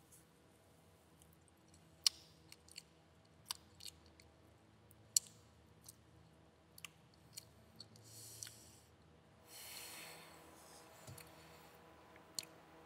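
Faint, scattered clicks and taps at irregular intervals, with two brief rustles about eight and ten seconds in.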